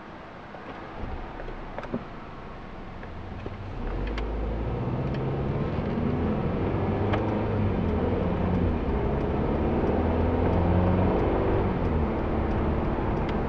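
Car heard from inside the cabin, pulling away from a standstill and accelerating: the engine and road noise grow louder about four seconds in and stay up as it gathers speed. A few light clicks come in the first two seconds.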